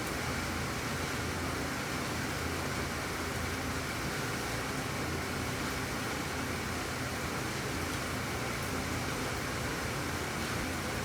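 Steady rain falling, an even hiss without separate drops or breaks.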